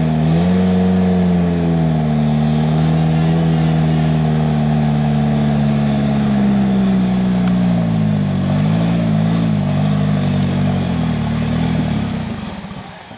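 Off-road 4x4's engine held at high revs under load. Its pitch dips and rises, holds steady, then wavers before dying away near the end.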